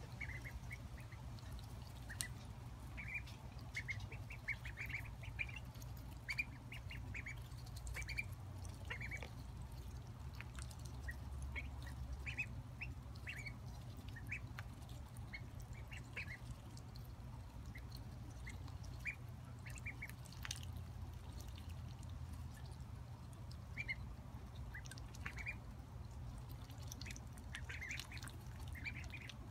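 Ducklings peeping in many short, high calls, scattered irregularly, as they feed together, over a steady low rumble.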